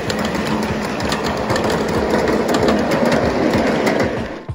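Cars of a 7½-inch gauge ride-on miniature train rolling past on the track, a continuous rumble with a rapid run of clicks from steel wheels over the rail joints.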